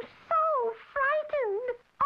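A very high-pitched cartoon woman's voice speaking in short phrases whose pitch rises and falls.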